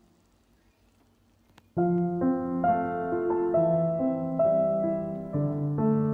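Background piano music that starts abruptly about two seconds in, after a near-silent gap.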